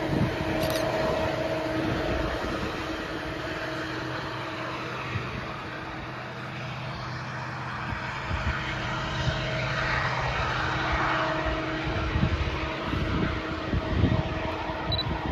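Diesel freight locomotive engines running with a steady droning hum that fades about twelve seconds in, over gusty wind buffeting the microphone.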